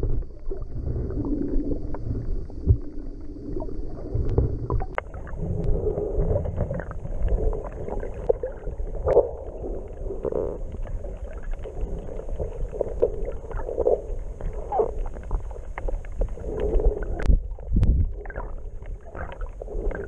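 Muffled underwater sound from a camera held below the surface: water moving and burbling around the swimmer, with a steady low rumble and a few sharp clicks.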